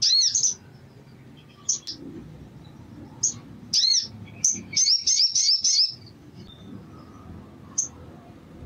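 Olive-backed sunbird (sogon) calling: sharp, very high chirps, the loudest right at the start, then a quick run of repeated arching notes about halfway through, and a single chirp near the end.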